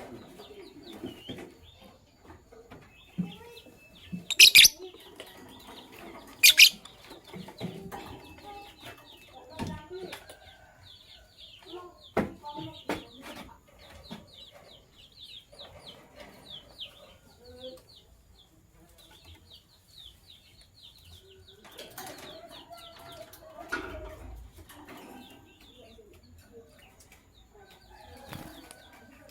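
Lovebirds chirping in quick, high, downward-sliding chirps, with two loud shrill calls about four and six seconds in. A few sharp knocks come near the middle.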